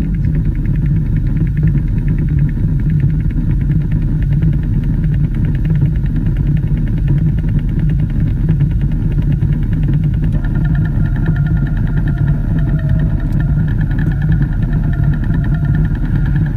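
Steady low drone from a radio broadcast, with no speech over it. About two-thirds of the way through, faint higher steady tones join it.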